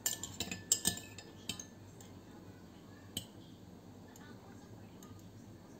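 A metal spoon clinking against the inside of a tall drinking glass while stirring. There is a quick run of clinks in the first second and a half, and one more clink about three seconds in.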